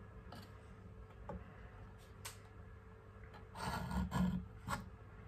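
Knife slicing through raw squid on a cutting board, the blade scraping and ticking against the board in short strokes. A louder cluster of scrapes comes about four seconds in.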